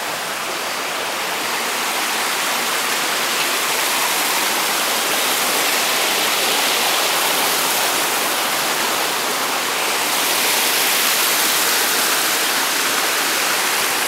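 Rushing water of a rocky forest stream cascading over boulders: a steady rush that grows a little louder after the first couple of seconds.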